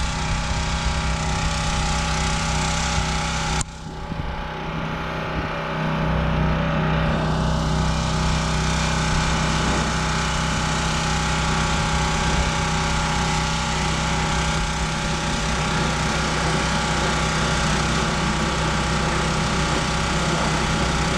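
Stihl RB 400 gas pressure washer engine running steadily, with the hiss of the water jet on the siding. The sound drops and thins about three and a half seconds in, then comes back fuller a couple of seconds later.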